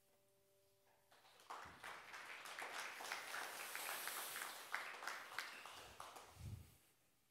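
A piano's last held chord dies away about a second in, then the congregation applauds for about five seconds, with a short low thump near the end.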